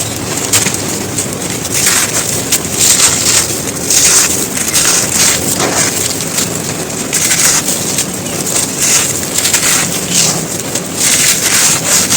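Dry, hardened lumps of earth being crushed and crumbled, with a dense, continuous run of crisp crunches and crackles.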